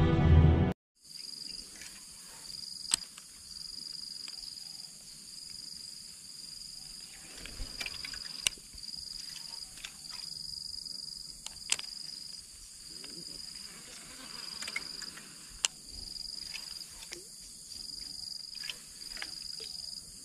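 Insects chirring in a high, steady drone that pulses on for about a second at a time with short breaks, with a few sharp clicks scattered through. The first second is loud music that cuts off suddenly.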